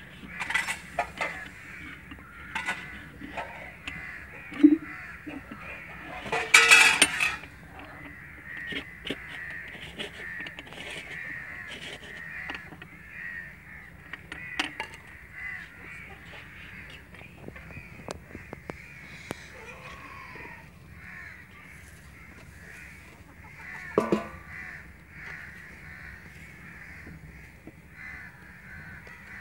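Crows cawing again and again, with scattered faint clicks and a short, louder noise about seven seconds in.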